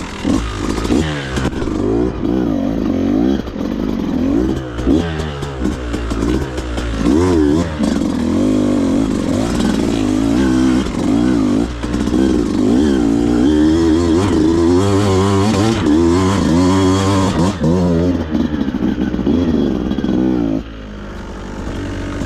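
Beta 200RR two-stroke dirt bike engine revving up and down repeatedly under throttle while riding slow, technical trail, settling to a quieter, steadier note near the end.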